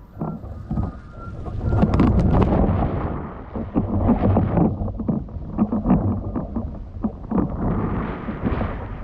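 Wind buffeting the microphone, mixed with rushing and splashing water, while riding a windfoil board on the sea. It surges irregularly and gets louder about two seconds in.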